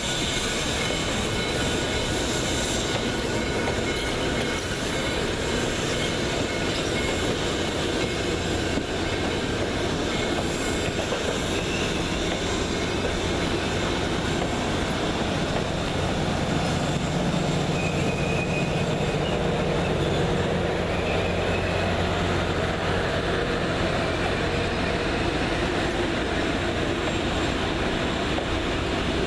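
Passenger cars of a steam-hauled excursion train rolling past close by, a steady rumble of wheels on the rails with a few brief, faint high wheel squeals. The rumble grows a little stronger about two-thirds of the way through.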